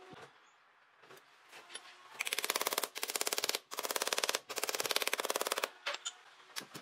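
Rapid metallic clicking, like a ratchet or rattle: a flat metal tool dragged along the teeth of a circular saw blade, in about four quick runs with short breaks between them.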